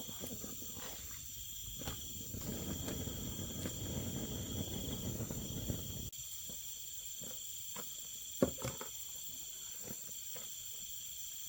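Crickets and other night insects trilling steadily, one high trill coming in long stretches with short breaks. From about two to six seconds in, a low rushing noise runs under them and stops suddenly, and a few scattered knocks follow, the loudest about eight and a half seconds in.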